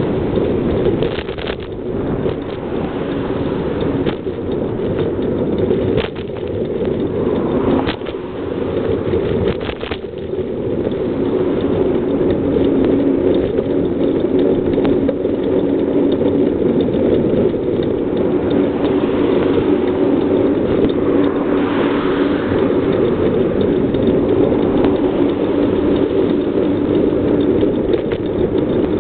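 Steady rush of riding noise and passing car traffic, picked up by a camera carried on a bicycle moving along a multi-lane road. There are a few sharp knocks in the first ten seconds.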